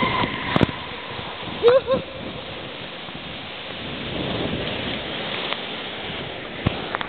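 Water rushing under an inflatable raft sliding down an enclosed water-slide tube: a steady rushing hiss like heavy rain. A rider lets out a brief yell about two seconds in, and there are two sharp knocks, one early and one near the end.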